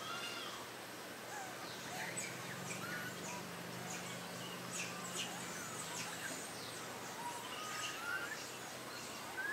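Outdoor ambience with scattered short bird chirps and small rising calls throughout, over a faint low hum in the middle.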